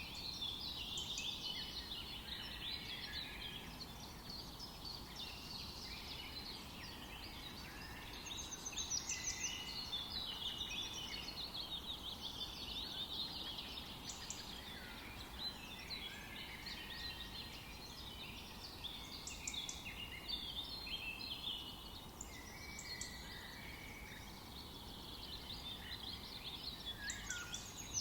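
Several small birds chirping and trilling almost continuously over a faint steady background hum, with livelier bursts of calls about eight to ten seconds in and again near the end.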